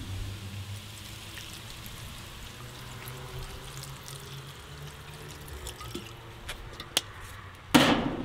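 Red wine vinegar poured from a bottle into a hot cast-iron Dutch oven of browned meat and vegetables, the liquid sizzling as it hits the hot food; the hiss thins out after about six seconds. A few clicks follow, then a short, louder noise near the end.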